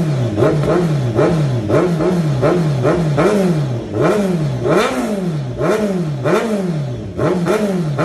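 Kawasaki Z900's inline-four engine, fitted with a short Villain slip-on exhaust, being blipped repeatedly at a standstill: about one and a half quick revs a second, each rising in pitch and falling back. The shop calls this short exhaust quiet.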